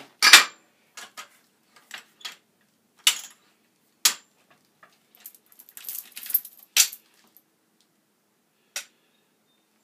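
Metal clanks and a jangling rattle as a black iron pipe is loosened from a tripod pipe vise and lifted out. There are a handful of separate sharp knocks, with a longer burst of rattling in the middle.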